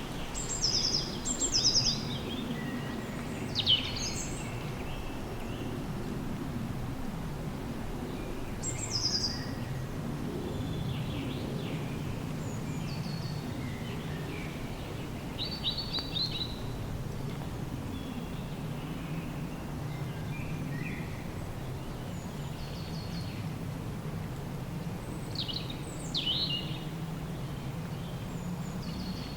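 Small birds chirping: short high calls every few seconds, over a steady low background noise.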